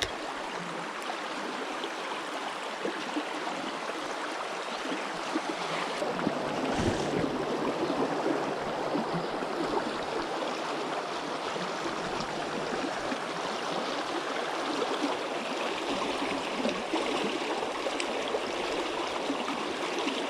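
Shallow creek water running and trickling over rocks, a steady rushing with a light gurgle. A single soft knock about seven seconds in.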